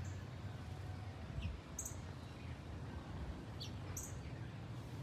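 Steady low, distant jet rumble from a four-engined Airbus A340-600 airliner flying high overhead. Over it a bird gives a short high chirp about every two seconds, with a few fainter descending chirps in between.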